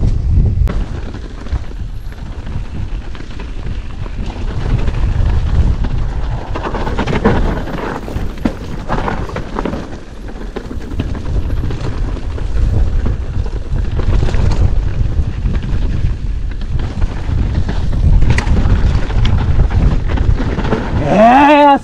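Wind buffeting an action camera's microphone on a mountain bike, mixed with the rumble and knocks of the bike rolling fast over a dirt trail.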